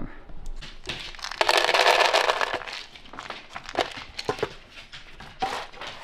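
Dry dog kibble poured into a stainless-steel bowl: a dense rattling pour lasting about a second, followed by scattered clicks and knocks.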